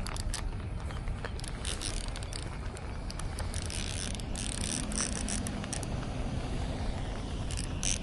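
Wind rumbling on the microphone, with intermittent bursts of a fishing reel's clicking whir as a lure is cast and wound back in.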